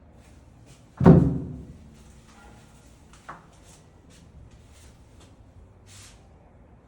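A loud thump about a second in that rings out briefly, then a smaller sharp knock a couple of seconds later, with faint clicks in between.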